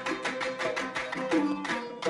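Kuwaiti sawt music: a group of men handclapping in unison in a fast, even rhythm over sustained oud and violin playing, with frame drums.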